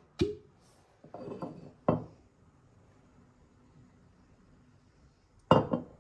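Cork stopper pulled from a glass bottle of Patrón XO Cafe coffee liqueur with a short hollow pop, followed by a few light glass knocks. The liqueur is then poured almost silently into a shot glass, and the heavy bottle clunks back down on the countertop near the end.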